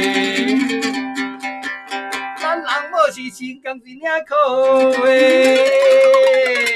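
A man singing a Taiwanese folk song in long held vowels, with plucked yueqin (moon lute) accompaniment. The voice holds one long note from about four and a half seconds in until near the end.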